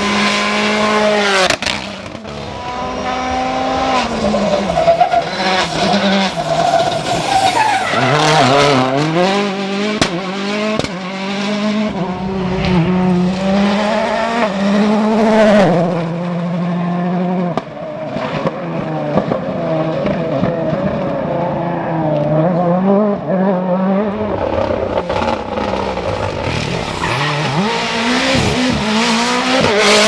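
Rally cars (Mini John Cooper Works WRC and Ford Fiesta RS WRC) passing one after another with their 1.6-litre turbocharged four-cylinder engines revving hard. The pitch climbs and drops with each gear change, and a few sharp cracks come about ten seconds in.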